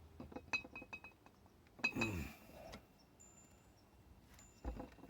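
Light metallic clinks and taps with a short ringing after them, from metal tools and drill parts handled against the engine head. About two seconds in there is a brief whir that falls in pitch, and a dull knock comes near the end.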